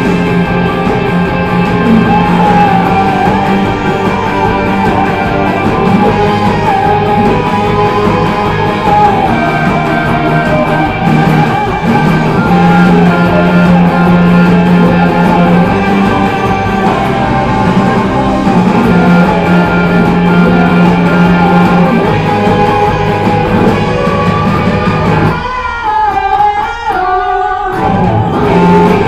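Rock band music led by guitar, loud and steady, with the low end thinning out briefly near the end.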